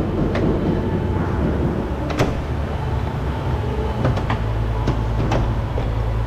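Toyota Camry door trim panel being pulled off, its plastic retaining clips letting go in about six short, sharp snaps and clicks spread over several seconds, over a steady low hum.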